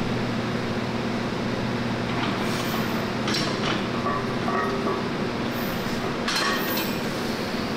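Steady low machine hum with three short metallic clinks, about two and a half, three and a half and six and a half seconds in.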